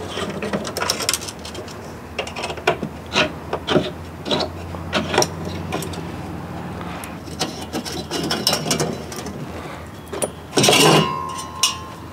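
Long Allen key working screws out of the metal trim panel on a Decked truck-bed drawer system: scattered small clicks and scrapes of metal on metal and plastic. About eleven seconds in, the freed metal panel clatters as it comes off and rings briefly.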